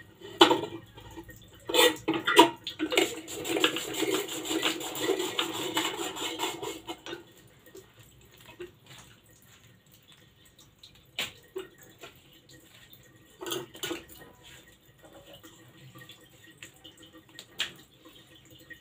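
Hand-cranked potato chips slicer cutting a potato into thin slices: a quick run of rasping slicing strokes for about four seconds, which then stops. A few scattered knocks and clatters follow.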